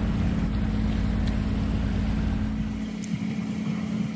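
Boat engine running steadily, a low drone with a constant hum; the deepest rumble falls away about three seconds in.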